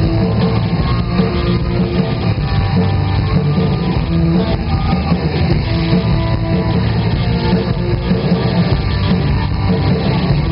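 Live rock band playing, loud and steady without a break, heard from the audience through the venue's sound system.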